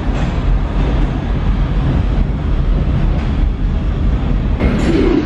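New York City Subway 4 train of R142-family cars pulling out of an underground station, a steady rumble of wheels on rail as it moves away. Near the end the sound changes abruptly to a brighter rush.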